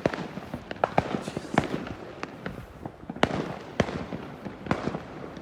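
Fireworks going off: an irregular string of sharp bangs and crackling pops, the sharpest about three seconds in.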